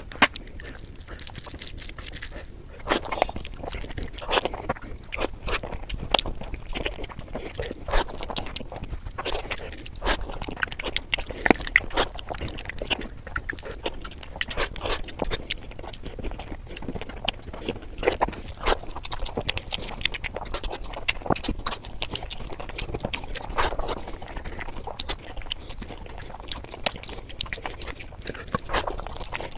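A person eating chicken and biryani up close: chewing and biting with irregular wet clicks, smacks and crunches throughout.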